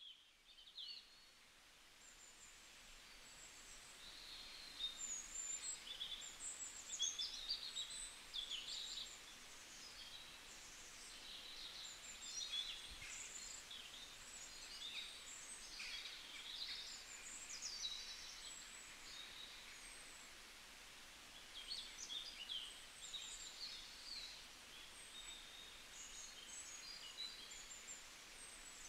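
Small birds chirping and trilling in quick, overlapping calls over a faint steady hiss, busier from a few seconds in.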